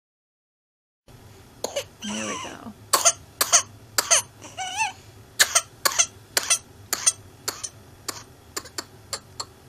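A child's paroxysmal whooping-cough (pertussis) fit: a long run of short, harsh coughs, often in pairs at about two a second, starting about a second in, with a couple of strained, pitched breaths between the early coughs.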